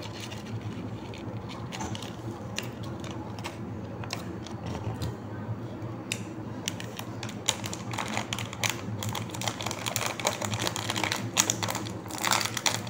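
Plastic snack wrappers crinkling and crackling in irregular sharp clicks as they are handled and torn open, busiest in the second half.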